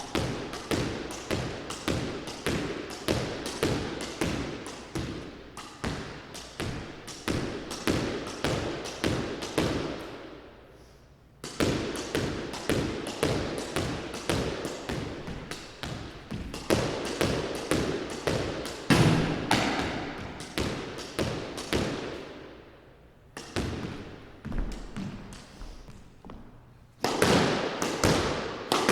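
Squash ball hit again and again in a solo practice drill: quick, regular racquet-and-wall strikes, about two or three a second, ringing in the enclosed court. The run of hits breaks off briefly three times and starts again.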